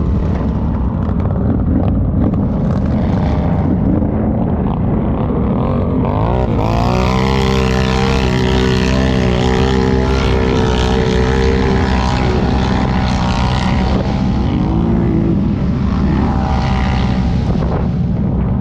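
ATV engine running loudly under load. It revs up sharply about six seconds in, holds high for several seconds, then drops back, with two shorter revs near the end.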